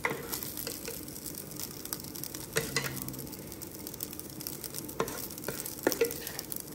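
Food frying and sizzling in a pan while it is stirred, with a few sharp clicks of a utensil against the pan.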